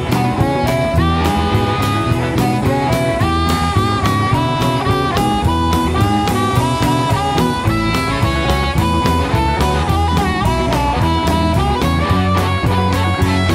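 Studio recording of a blues band playing an instrumental: a guitar picks a melody with bent and sliding notes over bass guitar and a steady drum-kit beat.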